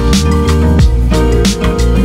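Background music with a steady beat: plucked guitar-like notes over drums.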